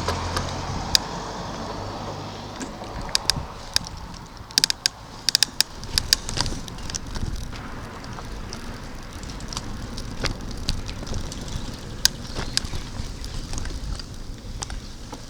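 Bicycle being ridden on a rough path: tyres running over the surface, with irregular sharp clicks and rattles from the bike. A low rumble is heard over the first few seconds.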